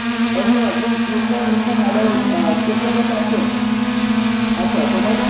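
Multirotor drone's motors and propellers running steadily, heard from the drone's own camera: a loud even hum with a thin high whine that wavers briefly about two seconds in. Faint crowd voices lie underneath.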